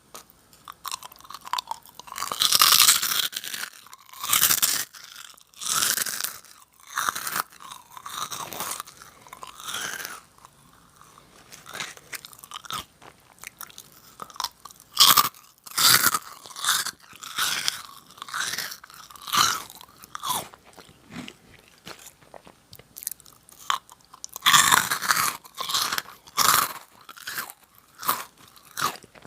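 Close-miked mouth sounds of someone eating Nongshim Jagalchi, a crisp fried wheat snack: irregular crunching in louder bouts, with softer chewing between them.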